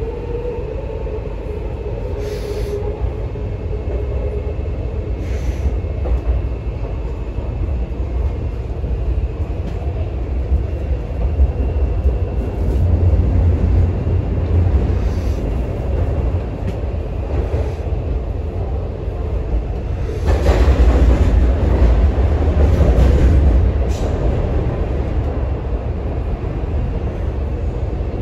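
MTR Kwun Tong Line C-train heard from inside the carriage while running: a steady low rumble of wheels on rail. A faint motor whine fades in the first few seconds, and the rail noise swells louder for a few seconds about twenty seconds in.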